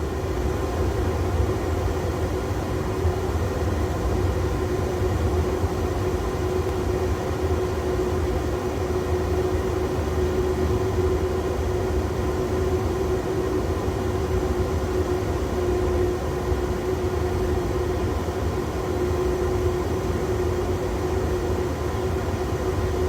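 Steady flight-deck noise of an Airbus A330 taxiing, with a low rumble under a steady mid-pitched hum from the engines at idle and the air-conditioning.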